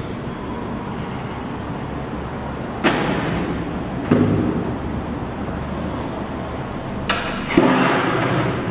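Sheet-metal computer case cover being taken off: a few sharp knocks and clunks, two of them with a short metallic ring, over a steady hiss.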